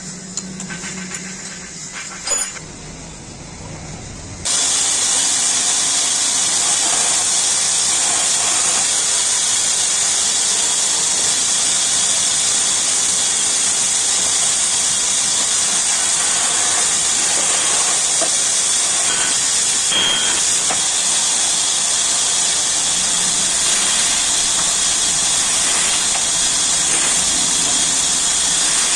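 A few light clicks and knocks as a bandsaw fence is set, then about four seconds in a loud, steady hiss of the bandsaw running while it cuts wooden strips.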